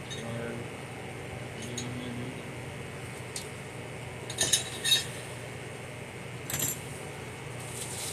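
Light clicks and small metallic clinks from handling a cordless hand planer and its accessories, with a quick double clink about halfway through as the loudest sound, over a steady low hum.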